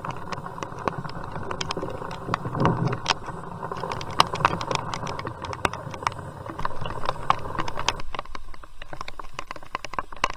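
Rain pattering on a plastic bag over the camera: many quick, irregular taps over a steady hiss of rain.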